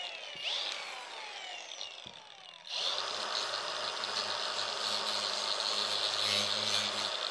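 Packing tape being ripped off the top of a cardboard box in two long pulls, each a screech falling in pitch. About three seconds in, a louder, steady whirring hum with a constant high whine starts and keeps going.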